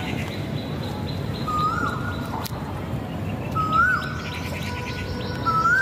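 A bird calling: a short note that rises and then dips, repeated three times about two seconds apart, over steady low background noise.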